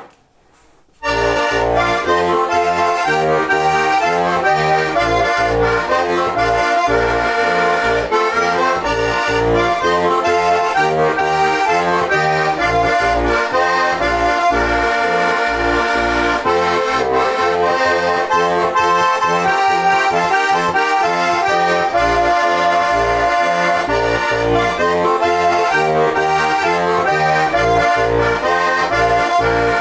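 Žúbor heligonka, a diatonic button accordion tuned F–B♭ with four-voice Dixi brass reeds, playing a Slovak folk song: a held melody over alternating bass notes. The playing begins about a second in.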